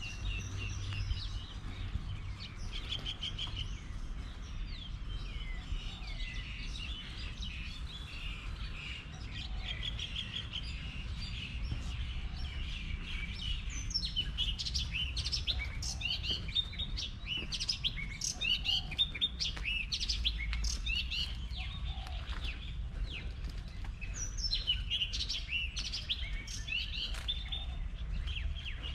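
Several small birds chirping and trilling in quick short calls, busier from about halfway through and again near the end, over a steady low rumble.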